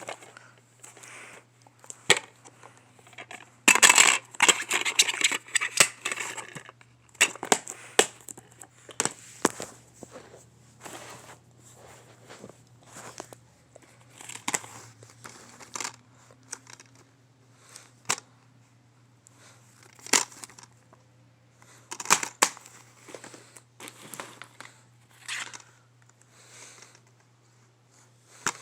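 DVD packaging being handled and opened by hand: plastic and paper crinkling and tearing, with a louder stretch of rustling about four seconds in and scattered sharp clicks and taps.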